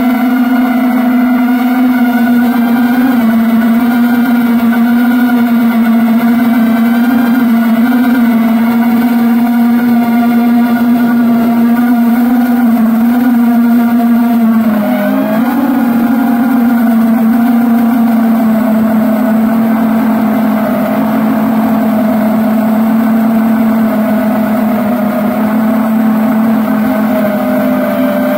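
A motor running steadily at a constant, fairly high pitch, with a brief dip and wobble in pitch about halfway through.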